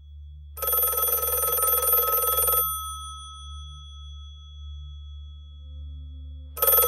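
Telephone bell ringing: one ring of about two seconds, a pause of about four seconds, then the next ring starting near the end. A steady low hum runs underneath.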